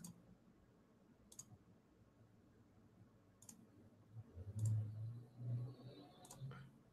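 A few faint, scattered computer mouse clicks as menu items are selected, with a faint low sound in between about two thirds of the way through.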